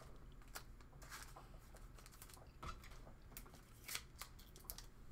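Faint rustling and scattered light clicks of trading cards and card packs being handled on a table.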